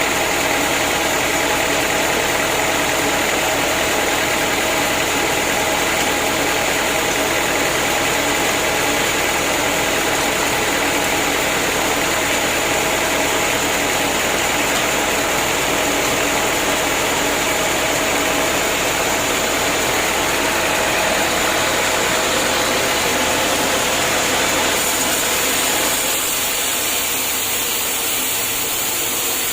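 Homemade sawmill's engine running steadily, with a change in tone and a slight drop in loudness near the end.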